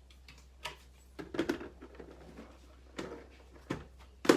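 A handful of short knocks and clatters at irregular intervals, the loudest near the end.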